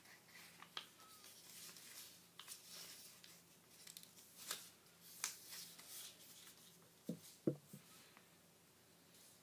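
A sheet of paper being folded by hand: faint, scattered rustling and crinkling as the paper is moved and its creases pressed flat. A couple of soft thumps about seven seconds in are the loudest sounds.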